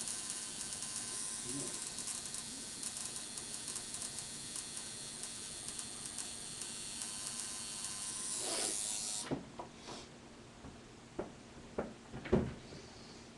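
Tattoo machine buzzing steadily while tattooing skin. It cuts off about nine seconds in and is followed by a few short clicks and knocks.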